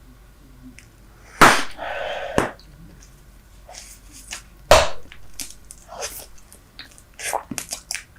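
Super Bubble bubble gum chewed right against the microphone: wet smacks and clicks, with two loud sharp snaps, one about a second and a half in and one nearly five seconds in.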